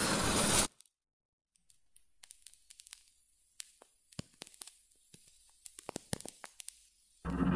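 A wooden match struck, a loud rasping flare lasting about a second at the start, then faint scattered crackles as it burns. Music comes in just before the end.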